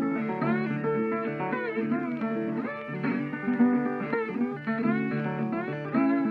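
Guitar music, plucked notes with frequent bends in pitch.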